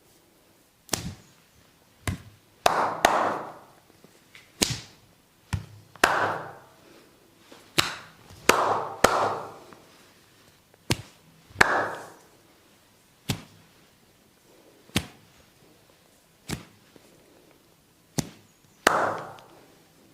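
Percussive massage strikes on a person's body: about sixteen sharp chops and slaps at irregular intervals of one to two seconds, several with a short rustling tail.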